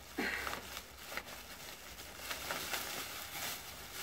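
Thin plastic carrier bag rustling and crinkling as its knotted handles are pulled open and a hand rummages inside.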